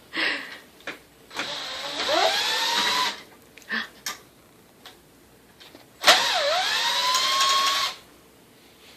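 A small electric motor spins up twice, each run lasting about two seconds. Its pitch rises and then holds steady. There are a few short knocks between the runs.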